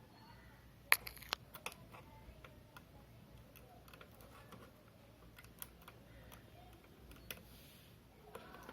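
Faint, scattered small clicks and taps from handling laptop parts during a RAM upgrade on a Dell Inspiron 15 3000. A few sharper clicks come close together about a second in.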